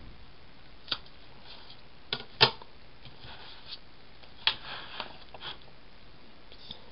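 Handling of a disc-bound paper planner and a plastic ruler: a few sharp clicks and taps with soft paper rustling as the page is turned over the binding discs. The loudest click comes about two and a half seconds in.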